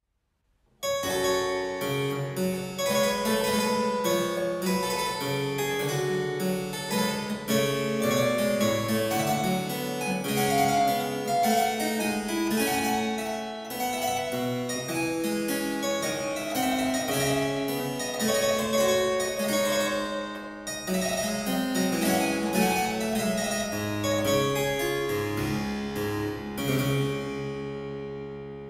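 Harpsichord music: a piece starting about a second in after a moment of silence, with many quick plucked notes.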